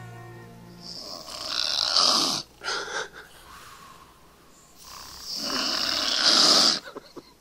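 A person snoring: two long snores, each swelling louder and then cutting off sharply, about three and a half seconds apart.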